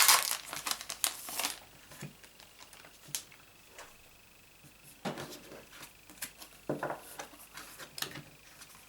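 Photocards and card stock being handled: a burst of rustling and crinkling in the first second or so, then scattered light taps and shuffles of the cards.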